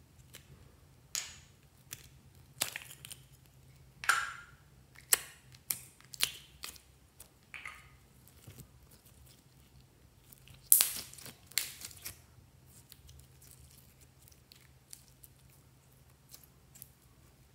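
A soft translucent pink jelly squeezed, pulled apart and pressed by hand, giving irregular sharp sticky crackles, loudest about four and eleven seconds in, over a faint steady low hum.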